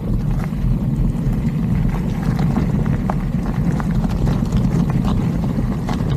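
Mountain bike descending a steep, stony trail: tyres rumbling over loose rocks while the bike rattles and clicks with the bumps.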